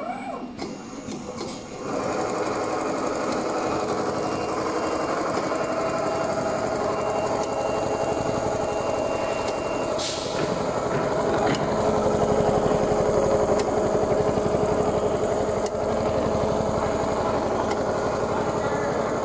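Richpeace computerized pattern sewing machine stitching: the needle bar runs at a rapid, even stroke over a steady motor whine. After a few quieter clicks it settles into steady running about two seconds in.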